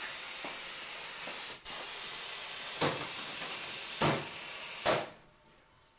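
CRT television hissing with static from a lost signal, with three sharp knocks as the set is struck on top; the hiss stops near the end.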